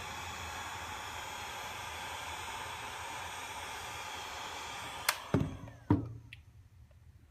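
Heat gun blowing steadily, softening the adhesive under a smartphone's display. About five seconds in there is a click and two knocks, and the blowing dies away.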